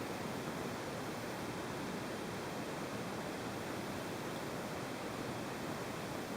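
Steady, even hiss with no rise and fall; no snore cycle stands out.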